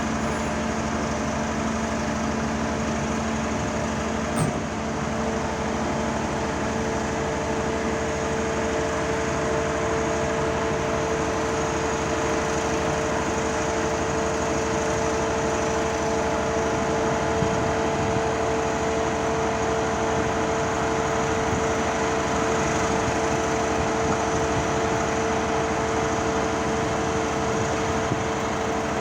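Hydraulic static pile driver running: a steady machine drone with a steady whine held through it, and one short knock about four and a half seconds in.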